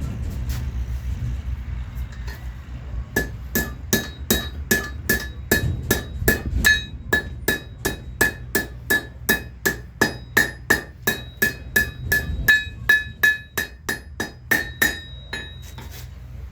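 Blacksmith's hammer beating a hot railroad spike on an anvil, a long even run of ringing blows at about three a second that starts a few seconds in and stops near the end. A low hum runs underneath.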